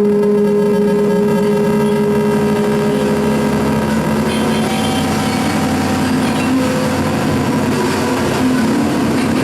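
Live noise music: a loud, unbroken wall of harsh noise over held droning tones, which drop away and shift to new pitches about four seconds in.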